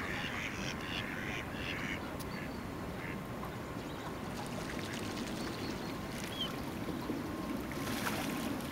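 Mallard ducks quacking in a quick series, about three quacks a second, stopping about two seconds in. A steady low rumble of background noise carries on underneath.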